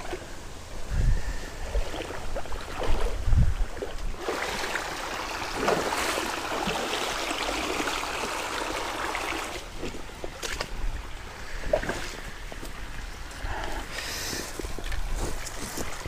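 Shallow creek water splashing and sloshing as someone wades through it, with a couple of low wind buffets on the microphone early on.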